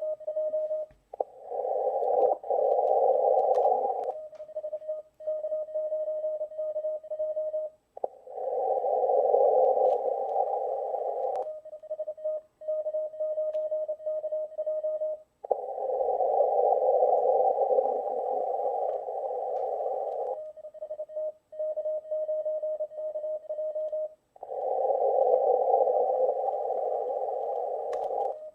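Morse code sidetone, a single tone keyed in short dots and dashes while a CW contest call goes out, alternating about every few seconds with louder stretches of narrow-filtered HF receiver hiss on the 15-meter band. The remote transceiver is heard through laptop speakers.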